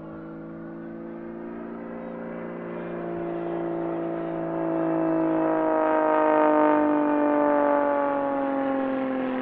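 Pitts Special aerobatic biplane's piston engine and propeller flying past, growing louder to a peak about two-thirds of the way through and then easing off as its pitch falls. The nose-mounted jet engines are not running.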